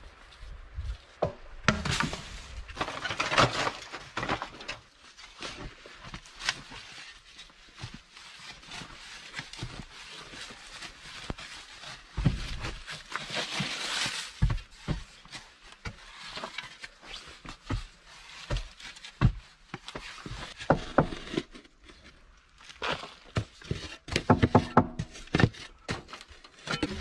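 Wooden poles knocking, then a small shovel digging into dry earth and leaf litter: an uneven run of knocks, scrapes and rustles as the blade cuts and scoops the soil.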